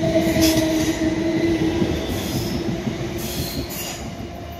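South Western Railway Class 456 and Class 455 electric multiple units passing close as they pull away, wheels rumbling on the rails with a steady high tone over them. The sound is loudest in the first second or two and fades as the last car goes by.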